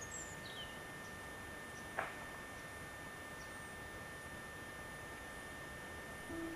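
Faint outdoor background recorded on a camcorder: a steady hiss with a constant high-pitched tone, a few faint bird chirps near the start and a single sharp click about two seconds in.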